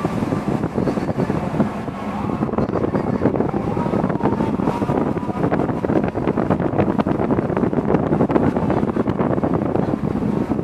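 Wind buffeting the microphone with a steady rush of waves breaking and washing along a cargo ship's hull in rough sea.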